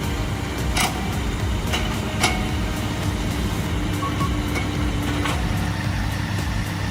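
Heavy machinery engine running steadily with a low rumble, with a few sharp knocks of metal or wood.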